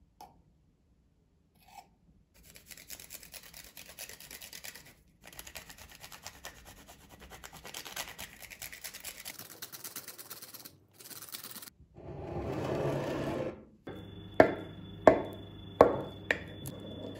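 Chocolate being grated on a flat hand grater: rapid rasping strokes over several seconds. Near the end come a short louder scrape and four sharp knocks, each about two thirds of a second apart.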